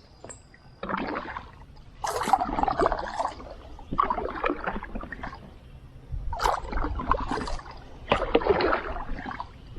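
Water splashing and sloshing around a kayak in a string of bursts, one every second or two.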